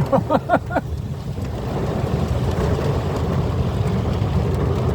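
Steady low rushing of storm floodwater pouring down, mixed with wind buffeting the microphone.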